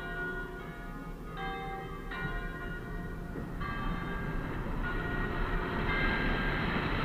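Church bells ringing, with fresh strikes coming in about every second or so and each one ringing on into the next. Under them runs the low, steady noise of a pickup truck's V8 driving slowly, a 2005 Dodge Ram 1500 with the 5.7 L HEMI.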